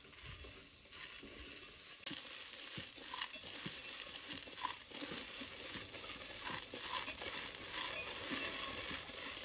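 Snails in their shells sizzling in a hot aluminium pot while being stirred with wooden chopsticks, the shells and chopsticks clicking against each other and the pot. The sizzle picks up about two seconds in.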